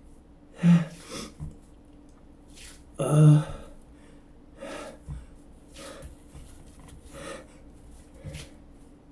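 A man sneezing twice, about a second in and again near the three-second mark, the second sneeze the louder. Short, fainter breaths come in between and after. The sneezes are brought on by chhinkni, a sneezing powder.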